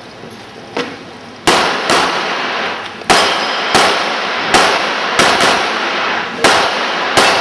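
Handgun shots fired at irregular intervals by a competitor shooting an IPSC stage, about nine in all, each sharp crack followed by a ringing echo that dies away. The first shot is fainter; the rest come in quick pairs and singles a half to one second apart.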